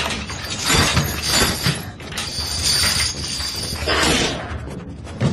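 Crashing and rattling of a wooden cage as a prisoner throws himself against the bars and grabs through them, a series of loud, noisy knocks and crashes.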